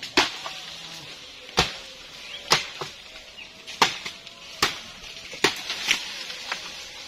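A hand blade chopping at bamboo stems: about seven sharp strikes, roughly one a second.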